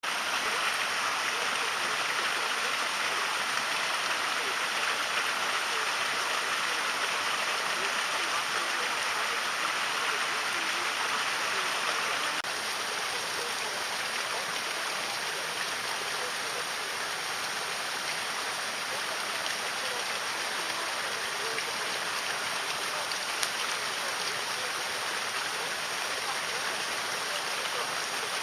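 Steady rushing of flowing river water, a little quieter from about halfway.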